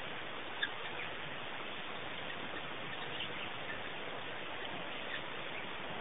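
Steady hiss with a few faint, short chirps and one brief click about half a second in.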